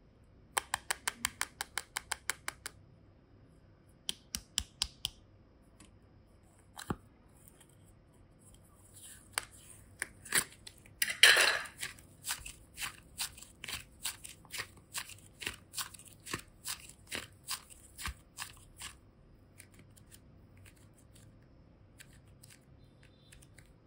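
Hands clicking and crackling a thin plastic diamond-shaped clay container as they squeeze it open. First come quick runs of sharp clicks, about five a second. About eleven seconds in there is one loud crackle, then regular clicks about two a second.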